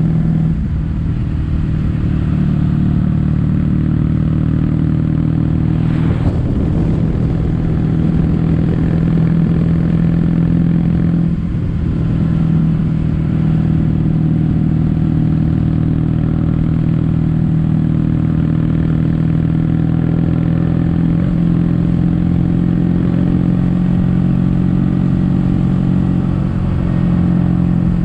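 Kawasaki W800's parallel-twin engine running under way through Yamato stainless-steel Cabton-style silencers, a steady exhaust note with a couple of brief dips partway through.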